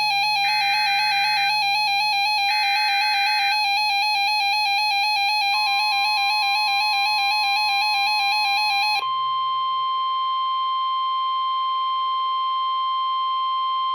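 NOAA Weather Radio Required Weekly Test alert signals. Two short screeching bursts of SAME digital header data sound over a steady buzzy alert tone. About five and a half seconds in, the long, steady 1050 Hz warning alarm tone begins, and it carries on alone once the buzz cuts off about nine seconds in.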